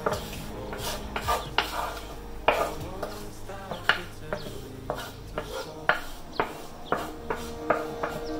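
Chopped vegetables scraped off a wooden cutting board into a glass salad bowl: irregular sharp taps and knocks of the board and utensil against each other and the bowl's rim, with soft scraping between them.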